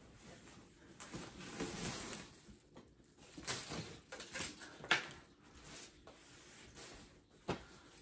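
Plastic packaging wrap rustling and crinkling as it is handled and gathered up off the floor, with a few sharp taps, the loudest about five seconds in.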